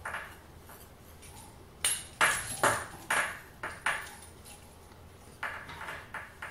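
Light metallic ticks and taps from fly-tying tools at the vise as thread is wrapped to tie down a dubbing loop: about five sharp ticks about two seconds in, then lighter ones near the end.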